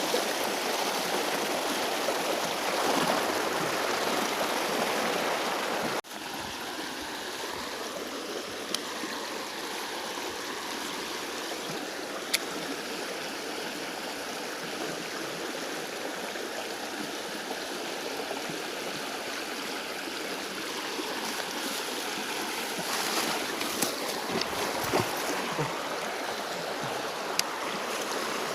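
Shallow, fast-flowing stream water running over stones in a steady rush. The level steps down suddenly about six seconds in. A few light clicks sound, mostly in the last few seconds.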